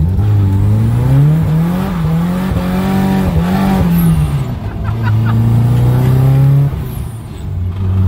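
Turbocharged SR20DET four-cylinder in a Nissan 240SX S14, heard from inside the cabin while driving. The engine note rises and falls several times as it is revved and eased off, holds steady for a moment, then dips briefly near the end before picking up again.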